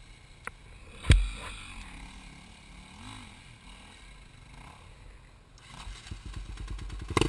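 Enduro motorcycle engine running at low revs among branches, with a single sharp knock about a second in that is the loudest sound. Near the end the engine's pulsing grows louder as the bike is ridden on.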